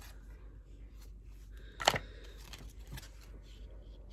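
Tarot cards being handled one at a time: a sharp card snap about two seconds in, followed by a couple of faint ticks.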